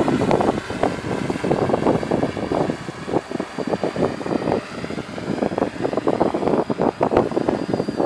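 Quadrotor drone's electric motors and propellers whirring in flight, the sound surging and dipping unevenly.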